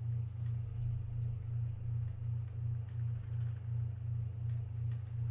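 Steady low electrical or mechanical hum that throbs about three to four times a second, with a few faint light clicks.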